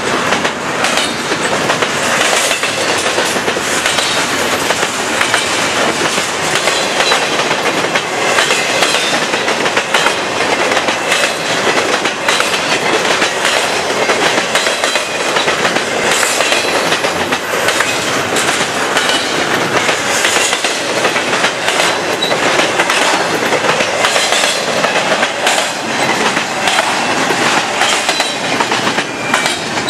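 Double-stack intermodal well cars of a freight train rolling past at speed: a loud, steady rumble of steel wheels on rail, with repeated clicks as wheels pass over rail joints.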